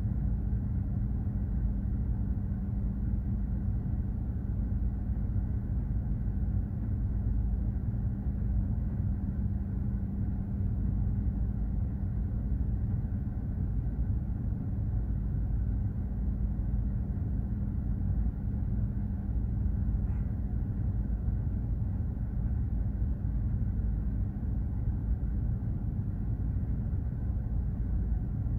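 Steady low drone of a container ship's engine and machinery under way, with a constant hum running through it.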